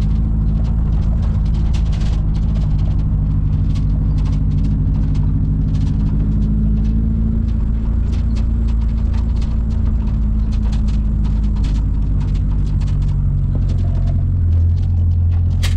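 Daihatsu Feroza 4x4 heard from inside the cabin, driving slowly over a rough dirt track: the engine runs steadily, with frequent small clicks and rattles as the body jolts over the ruts. The engine note swells briefly near the end.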